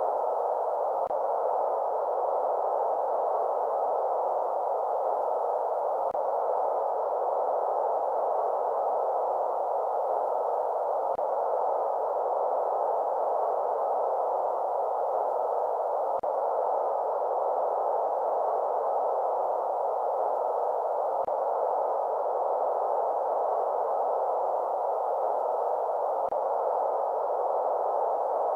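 Steady white-noise sleep track for babies: an even, unchanging hiss that sits in the middle range, without high or low ends.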